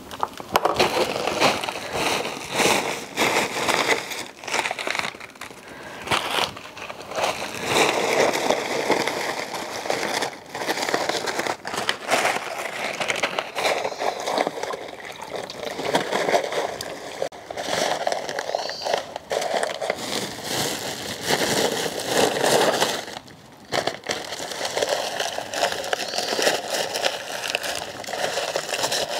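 Dried corn husks crackling and rustling as they are handled and pressed down into a bucket of water to soak for tamales, with some sloshing of the water.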